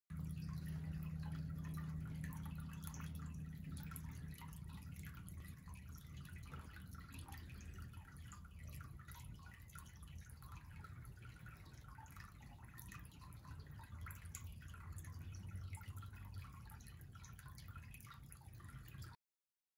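Water dripping and lapping in the water bed of a CNC plasma cutting table, over a low steady hum that eases after a few seconds. The sound cuts off abruptly just before the end.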